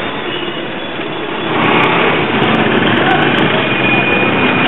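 Busy city street traffic: a dense, steady din of vehicles and crowd voices mixed together, with a faint high steady tone in the last second or so.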